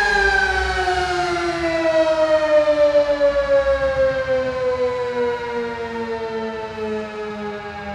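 Sentry 10V2T dual-tone rotating outdoor warning siren sounding its steady alert signal, its chord of tones falling steadily in pitch as the rotors wind down.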